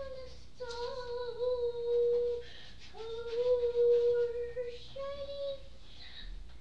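A small child singing a wordless tune in long held notes, a second or two each, with small scoops in pitch between them.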